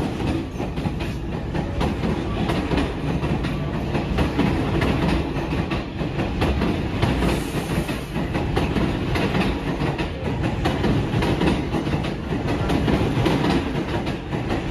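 R46 subway train running on the track, heard on board: a steady loud rumble with many quick clicks and clacks of the wheels over the rails.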